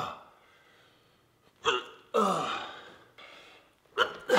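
A man's short grunts and gasps of effort with falling pitch, then near the end a sharp smack as his zip-tied forearms are slammed down against his hips to snap the tie, followed by another grunt.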